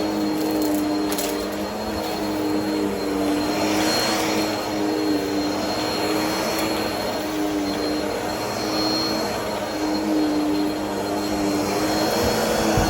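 Vacuum cleaner running over a carpet square: a steady motor hum that wavers slightly in pitch, under a rushing suction noise that swells and fades every few seconds.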